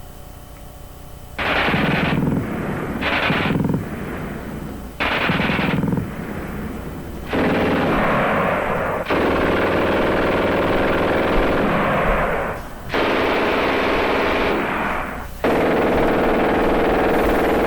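Machine gun firing in bursts: short bursts with brief gaps at first, then longer sustained bursts, each cutting off sharply.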